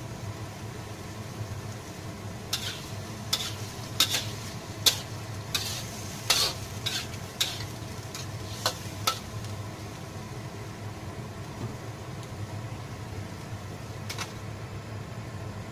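Metal spatula scraping and clinking against a wok, about a dozen sharp strokes, while minced pork and bean curd are stirred over a steady sizzle and a low hum. Near the end comes a single clink as a glass lid is set on the wok.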